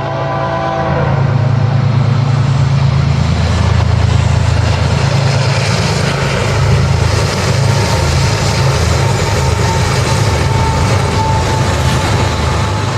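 Diesel freight locomotives on the BNSF mainline passing close by. Their engines run with a steady low drone over the rumble and clatter of wheels on rail. The sound fades in at the start and stays loud throughout.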